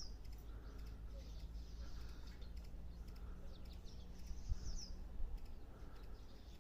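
A swallow twittering on and on: a run of high chirps and short down-slurred notes, with a low rumble underneath and a single thump about four and a half seconds in.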